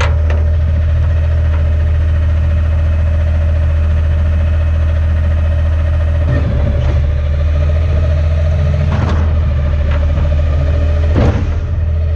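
Garbage truck running, a steady low engine drone with a steady whine above it, broken by a few knocks or clunks about halfway through, around three-quarters through and near the end.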